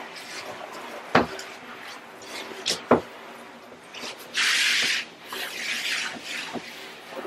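A handheld shower head knocking twice against the tub, then a short hiss of spray a little after four seconds in, with light handling and rubbing noise.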